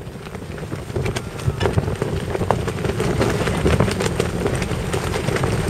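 Strong wind buffeting the microphone aboard a moving motorboat, over the steady hum of its engine; it grows louder about a second in.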